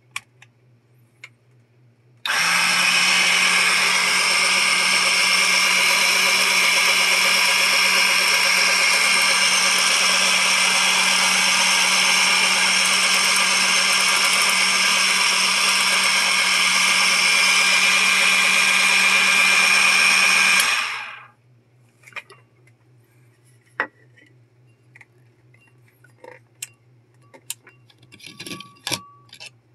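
KitchenAid Pro Line burr coffee grinder's motor running steadily for about eighteen seconds with a low hum under a whir, then switched off and winding down. Afterwards a few light clicks and knocks from handling the glass jars.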